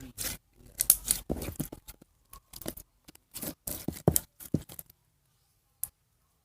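Pink slime being squeezed and pulled apart, giving irregular crackly, tearing pops that stop about five seconds in, with one more pop near the end.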